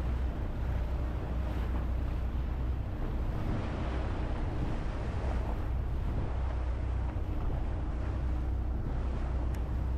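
Boat engine running steadily under way, a constant low hum, with water rushing along the hull and wind buffeting the microphone.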